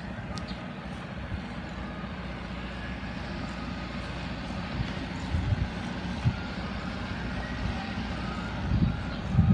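Wind buffeting the phone microphone and tyre rumble while cycling on asphalt, swelling in gusts near the end. Faint, distant music-box chimes from an ice cream truck sound under it.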